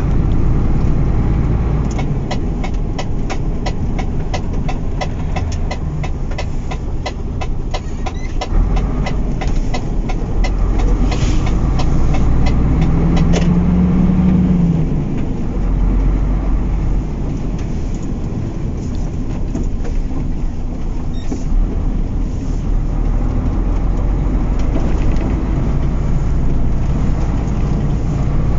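Truck engine and road noise heard from inside the cab while driving: a steady low rumble, with a run of fast, regular ticks from about two seconds in until about halfway through.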